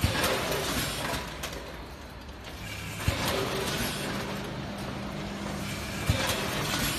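Vertical form-fill-seal packing machine running, with mechanical clatter and sharp knocks every few seconds. A steady low hum joins after about three seconds.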